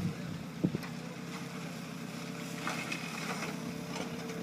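Engine of a heavy machine running steadily with a constant hum, with a short knock about half a second in.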